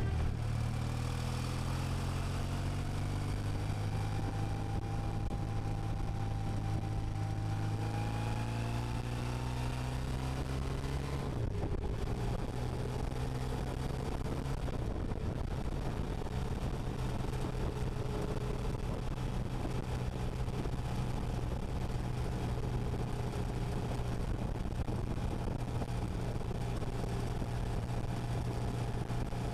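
Motorcycle engine pulling up through the revs for about ten seconds. About eleven seconds in the pitch drops suddenly at a gear change, and the engine then runs steadily at cruising speed.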